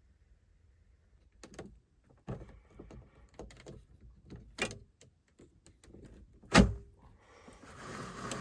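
A door being handled: a string of clicks and knocks, then one loud thunk as it shuts about two-thirds of the way in, followed by a rising hiss near the end.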